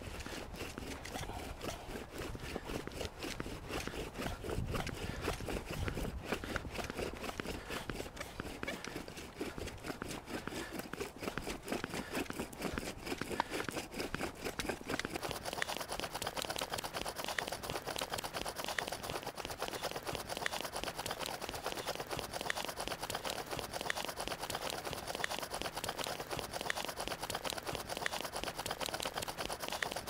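Bow drill in use: a wooden spindle spun by a corded bow grinds and rasps in its socket in a chaga tinder-fungus hearth, stroke after stroke, working the fungus toward a smouldering ember. About halfway through the rasping turns brighter and higher.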